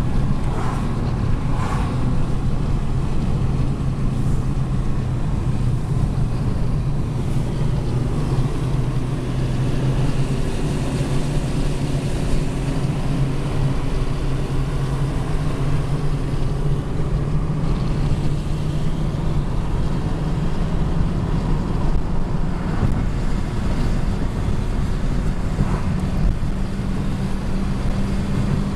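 Steady road noise heard inside a moving car's cabin: a low engine hum under a constant rush of tyre and wind noise.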